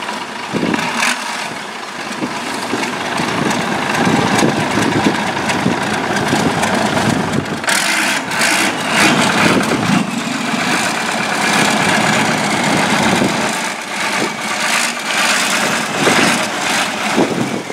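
A long-tail boat's large turbocharged inline engine running hard, its loudness swelling and dipping.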